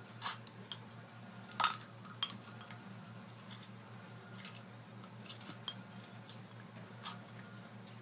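A few short soft clicks and scuffs, the loudest about one and a half seconds in, as three-week-old African grey parrot chicks shift about on paper towel over newspaper. A steady low hum runs underneath.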